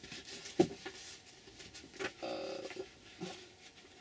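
Paper sheets being handled on a craft table: light rustling and a few sharp taps, with a brief squeak just after two seconds in.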